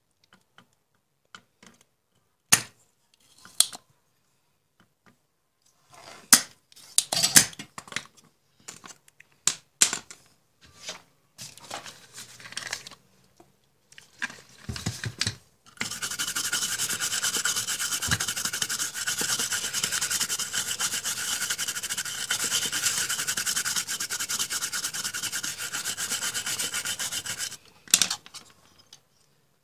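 Sharp clicks and knocks of tools at the solder side of an LCD monitor's circuit board, then about twelve seconds of steady brisk scrubbing on the board, which stops abruptly before one last short scrape.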